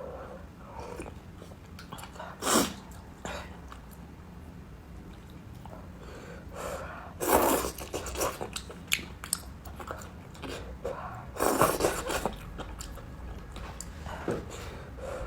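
A person eating crossing-the-bridge rice noodles close to the microphone: chewing, with three louder noisy bursts of slurping, a short one early and two longer ones around the middle and later.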